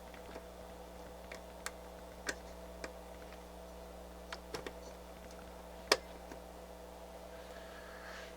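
Scattered light clicks and taps of test gear being handled, the sharpest about six seconds in, over a steady low electrical hum.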